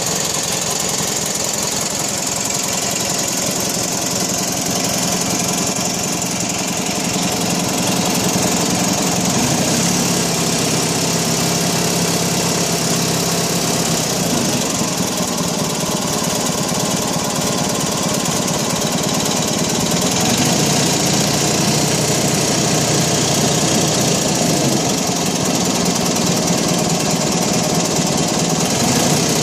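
Turf Master 16/42 lawn tractor's 16 hp Briggs & Stratton engine running steadily through a homemade vertical exhaust pipe.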